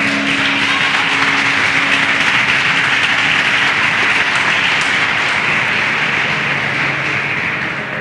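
Audience applauding steadily for several seconds, dying away near the end.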